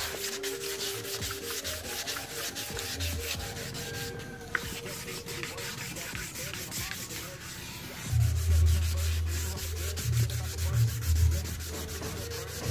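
Hand wet-sanding of an old Yamaha motorcycle helmet's shell with 400-grit sandpaper and water, in quick back-and-forth rubbing strokes that scuff the old finish before repainting. A low rumble comes in underneath about eight seconds in.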